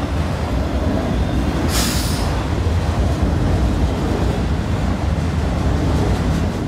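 Freight train's autorack cars rolling past close by: a steady rumble of steel wheels on the rails, with a brief hiss about two seconds in.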